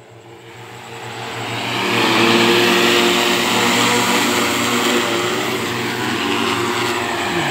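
Agricultural multirotor spray drone's propellers buzzing, growing steadily louder over the first two seconds as it flies in close, then holding a loud, steady, many-toned buzz.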